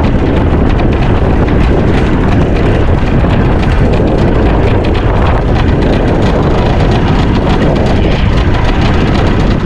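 Wind buffeting the microphone over open water: a loud, steady rumbling roar with no break.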